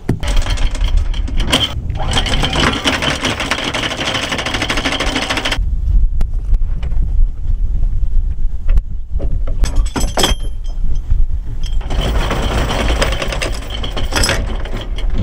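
Electric anchor windlass letting out chain, the chain rattling rapidly over the gypsy in two runs: a long one of about five seconds at the start and a shorter one of about two seconds near the end, with a low rumble in between.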